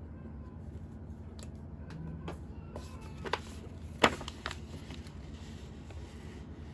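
A legal pad being picked up off a desk and handled, with a few light clicks and a sharp knock about four seconds in, over a steady low hum.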